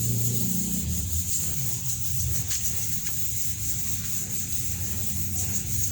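Steady abrasive rubbing, as of sanding or grinding a blade, over a low hum, with a few faint ticks.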